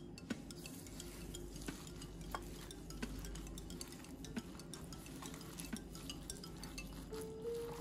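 Gloved hand squeezing and mixing a wet sardine, carrot and egg filling in a glass bowl, faint squishing with scattered light clicks against the glass.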